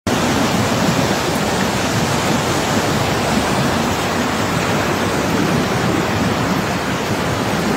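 Flash-flood water rushing fast down a flooded street, a loud steady rush of water.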